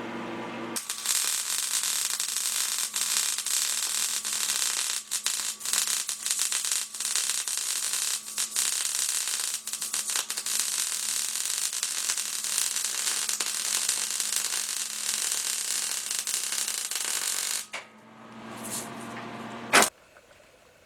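MIG welder running a weld on steel, the steady crackling sizzle of 0.023-inch wire under argon/CO2 shielding gas, stopping about three seconds before the end. After a short pause comes a brief hiss and one sharp click.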